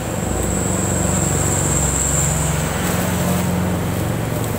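A motor vehicle's engine running close by, its low note shifting and loudest for the first three seconds or so before easing off slightly.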